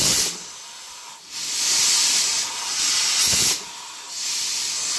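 Donkin marine steam steering engine hissing steam as it runs in response to the control wheel, the hiss cutting off twice for about a second and then resuming. Each cut-off is the engine stopping as its screw-driven valve returns to centre and shuts off the steam.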